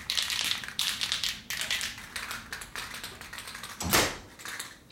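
Aerosol spray-paint can being shaken, its mixing ball rattling in quick runs of clicks. A single louder thump about four seconds in.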